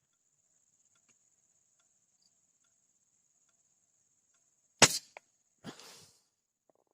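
A single sharp shot from a .177 air rifle about five seconds in. Under a second later comes a brief, softer rustling noise. A steady high-pitched insect drone runs before the shot.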